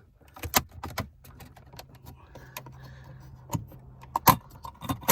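Plastic dashboard fascia trim being worked loose by hand, its retaining clips and panel giving a scatter of sharp plastic clicks and light rattles, the loudest about four seconds in. A low steady hum runs underneath.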